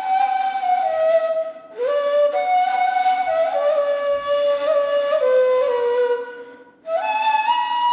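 Ney, the Turkish end-blown reed flute, playing a slow melody in stepwise phrases that mostly fall, with a breathy hiss under the tone. The playing breaks for a breath about two seconds in and again near the end, when a new phrase climbs and holds a high note.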